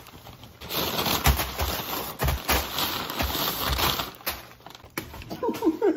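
Paper takeout bags crinkling and rustling as they are handled and piled on a table, a dense crackle with many small clicks. A short voice sound comes near the end.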